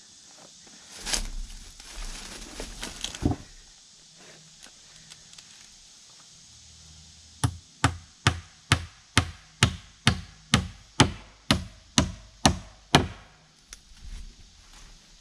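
Hammer driving nails into a wooden board: about a dozen evenly spaced strikes, a little over two a second, beginning about halfway through. A brief rustle and scrape comes before the hammering.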